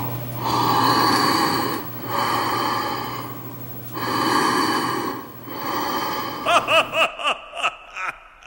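Slow, heavy, rasping breaths, four long swells in a row, over a low steady hum. Near the end comes a quick run of short warbling tones that curve up and down.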